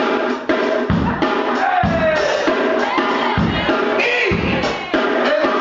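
Hip-hop beat with a heavy kick drum about once a second and a melody running over it.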